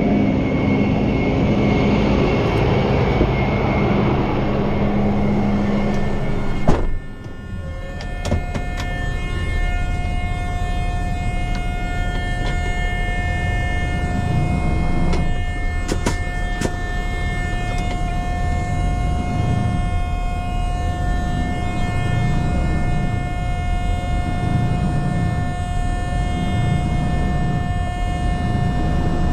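Rollback tow truck's engine running as the truck pulls forward. About seven seconds in the sound drops abruptly to a quieter steady engine hum with a constant high whine and a few sharp clicks.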